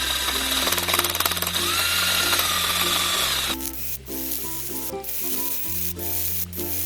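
Background music with a stepping bass line. Over the first half a power tool runs with a whine, cutting off abruptly about halfway through.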